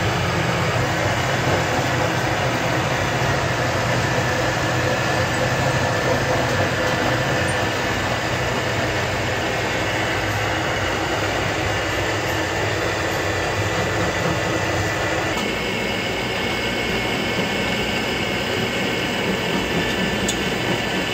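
Steady mechanical drone of a lathe running with a belt-driven tool-post grinder mounted on it, its mix of tones shifting slightly about two-thirds of the way through.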